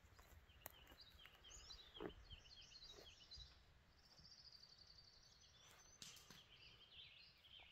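Faint morning birdsong: several small birds chirping in short repeated high notes, with a rapid trill in the middle. A few soft clicks are heard in the first three seconds.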